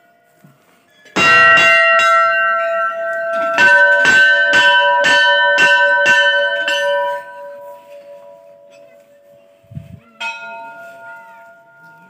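Hanging temple bells being rung by hand. One bell is struck about a second in, then another is struck repeatedly about twice a second for a few seconds, and a third rings once near the end, each leaving a long, lingering ring.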